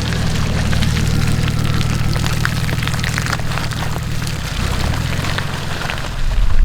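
A 4x4's engine running at low, steady revs while it drives over rough track, with many small cracks and ticks from the tyres on stones and ground. The engine note shifts slightly about four and a half seconds in.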